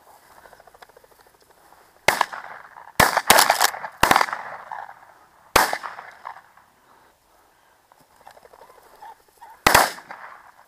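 Shotguns firing at a flushed pheasant: a rapid volley of about six shots between two and six seconds in, then a single shot near the end.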